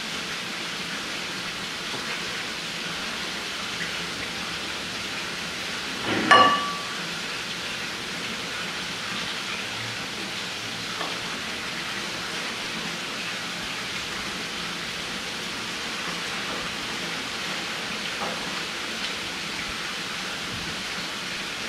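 Steady even hiss with one short, sharp clink-like sound about six seconds in, and a few faint ticks later.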